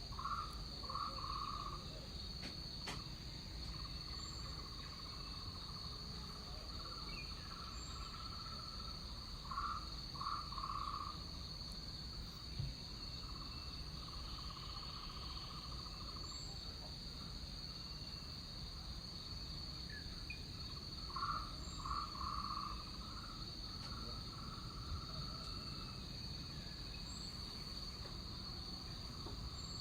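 Tropical rainforest ambience: insects droning steadily at a high pitch, with another animal giving short calls in groups of two or three notes, three times, over a low rumble.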